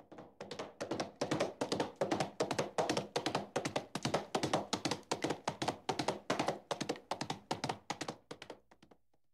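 A quick, uneven run of sharp taps, about four or five a second, that stops shortly before the end.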